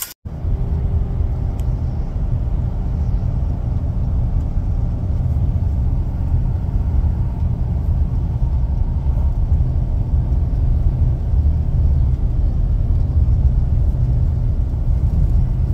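Steady low rumble of a car driving, heard from inside the cabin: road and engine noise with no other events.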